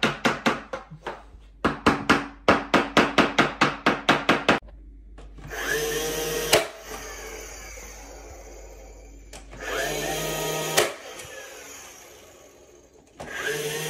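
Two quick runs of sharp knocks, about four a second, then a cordless power tool run in short bursts that spin up and wind down, each ending in a sharp knock, and starting up again near the end.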